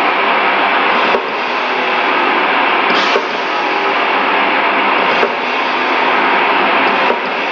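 Live metal band playing loud, with electric guitars and drums heard from the crowd as a dense wall of sound.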